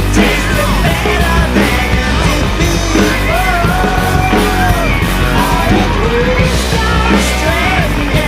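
Loud band music with a singing voice over it, continuous and steady in level.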